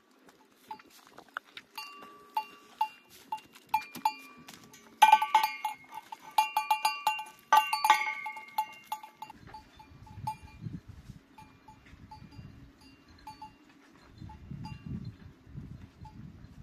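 Small goat bell clinking in quick, light strokes as the goat moves its head, with a louder flurry of clanks in the middle. It then grows fainter over a low rumble.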